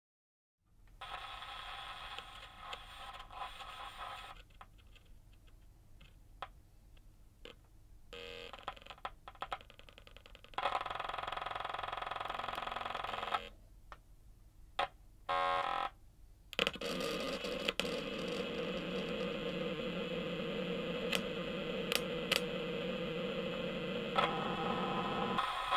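Circuit-bent BOSS DD-6 delay pedal, its exposed circuit board shorted by hand with a wire, driving small loudspeaker drivers resting on a snare drum and a cymbal. Glitchy electronic tones and crackle come and go in fits and drop out briefly, then settle into a steady dense buzz about two-thirds of the way through, with scattered clicks.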